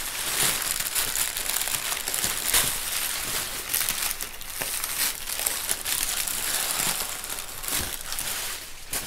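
Crumpled brown kraft packing paper being pulled out of a cardboard box, with plastic wrap around the packed pieces rustling as it is handled. It makes a continuous, irregular crinkling with sharp crackles throughout, easing off right at the end.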